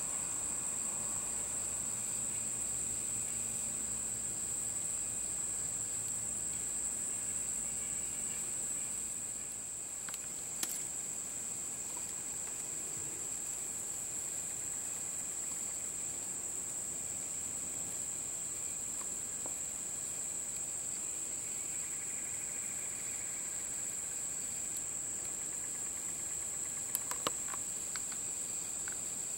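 Steady, high-pitched trilling of insects, unbroken on one pitch. A low hum underneath fades out about nine seconds in, and a few faint clicks come near the middle and near the end.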